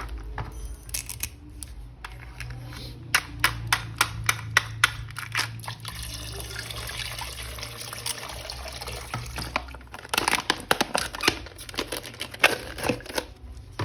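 Clicks, taps and knocks of small plastic toy parts being handled, in dense runs, with a stretch of steady hiss in the middle.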